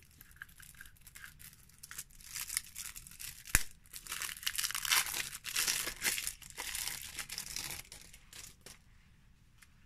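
Wrapping being torn and peeled off a new deck of oracle cards: irregular crinkling and tearing, with one sharp click about three and a half seconds in, dying away near the end.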